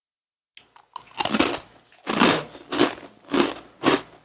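A person chewing crunchy food close to the microphone, starting about a second in and going on in a steady rhythm of about two crunching chews a second.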